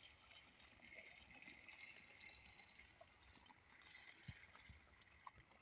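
Near silence: faint outdoor hiss with a few light ticks. No engine is heard running.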